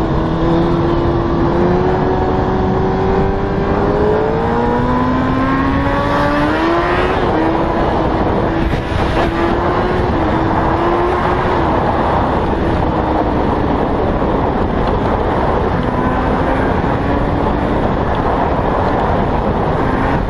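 Motorcycle engine accelerating, its pitch climbing, dropping at a gear change about four seconds in, climbing again and then holding roughly steady, with heavy wind noise over the microphone.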